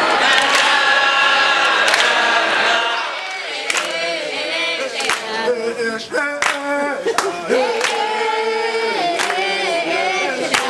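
A group of men and women singing together unaccompanied in several voices, clapping their hands. The first few seconds are fuller and louder, then the voices thin out and sharp hand claps cut in about once a second.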